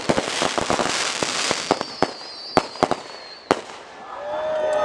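Fireworks going off: a dense run of rapid crackling snaps, then a few separate sharp bangs about two and a half and three and a half seconds in. A high wavering whistle runs for about two seconds and ends at the last bang.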